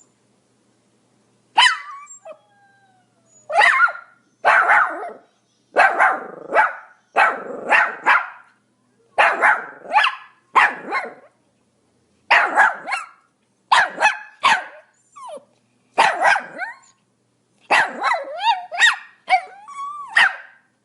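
A Pomeranian barking: sharp, high-pitched barks in quick runs of two or three, repeated over and over, starting about a second and a half in.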